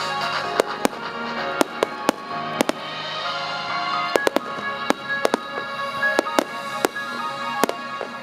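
Fireworks shells bursting, about twenty sharp bangs in quick, irregular succession, over music that plays throughout.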